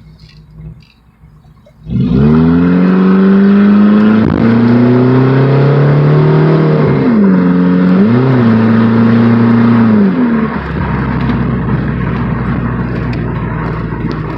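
Straight-piped Chevy Cavalier engine: after a quiet idle it comes in suddenly at full throttle about two seconds in, its pitch climbing, with a few brief drops in pitch as at gear changes. About ten seconds in it lets off, leaving a steadier, quieter running noise.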